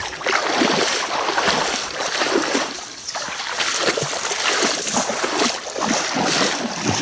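A person wading through shallow marsh water: steps splashing and sloshing over and over, in an uneven rhythm.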